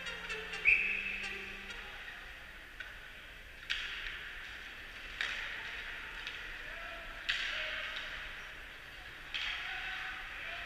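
Ice hockey play in an indoor rink: five sharp knocks, the first the loudest, about every two seconds, each ringing on in the arena's echo, as pucks and sticks strike the ice and boards, over a steady hiss.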